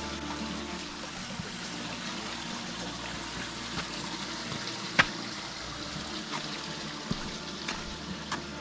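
Creek water trickling and running steadily, with a few sharp clicks over it, the loudest about five seconds in.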